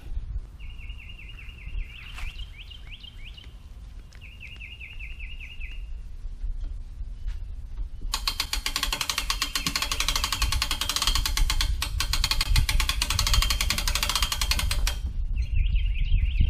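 Hand-cranked winch on a gear hoist ratcheting in a fast, even run of clicks for about seven seconds as it lifts a heavy kayak, starting about halfway through. Before it, and again near the end, a bird calls in short repeated chirping series.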